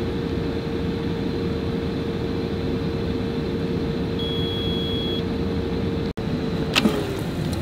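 Instant Vortex Mini air fryer's fan running with a steady hum, then one beep about a second long as its cook timer runs out, about four seconds in. Near the end a click, and the fan's hum falls in pitch as it spins down.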